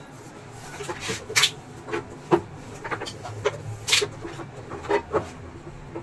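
Short, sharp plastic clicks and knocks from an induction cooker's body and switch panel as hands press along it to seat the panel and glass top. They come irregularly, several a second apart.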